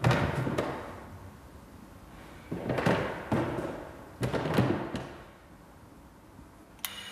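Three rounds of heavy bangs and clatter, like doors in a stairwell, each leaving an echoing tail: one at the start, one about two and a half seconds in, one about four seconds in. Near the end a short bright ringing with several steady tones begins.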